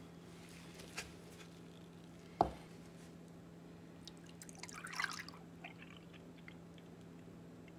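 Milk poured from a glass measuring cup into a glass bowl of cornmeal, splashing for about a second past the middle, then a few light drips. A single sharp knock a couple of seconds in is the loudest sound, and a steady low hum sits underneath.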